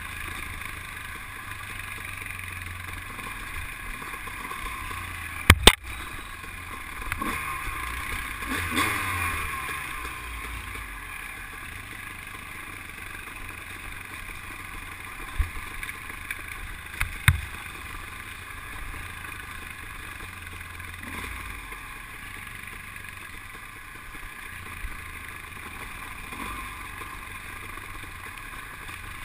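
ATV engine running steadily as the quad travels a dirt trail, its note rising and falling a little around eight to nine seconds in. A few sharp knocks cut through, the loudest about five and a half seconds in and two more around fifteen and seventeen seconds.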